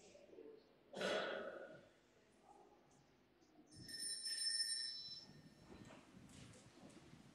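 A small bell rings with several high, clear tones for about a second and a half, starting about four seconds in, signalling the start of Mass. A short burst of noise comes about a second in, against the low murmur of the church.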